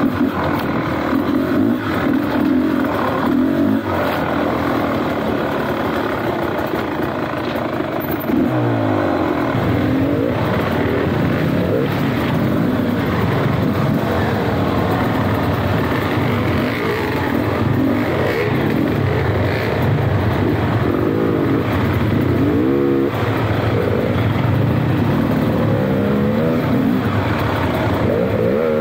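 Dirt bike engine running hard while riding, its pitch rising and falling over and over as the throttle is opened and closed.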